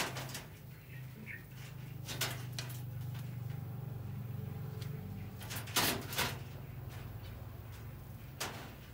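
Scattered sharp knocks and taps from a greater coucal pecking and shifting on the bamboo perch of its wire-mesh cage while it eats a centipede, about half a dozen in all. Under them runs a low steady hum that swells in the middle and fades again.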